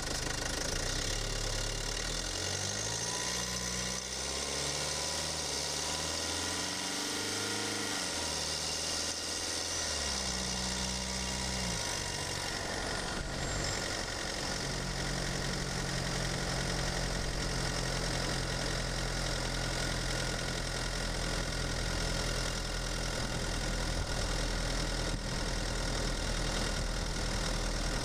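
Mercedes-Benz OM651 2.1-litre four-cylinder twin-turbo diesel running under way, heard from inside the engine bay with its mechanical noise to the fore. Its pitch moves up and down in steps over the first dozen seconds, then holds steady.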